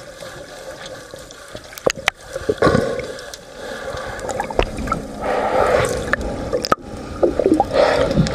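A scrub pad rubbing a sailboat's hull underwater, heard through the water: a muffled wash of water movement with scattered sharp clicks and knocks, growing louder about five seconds in.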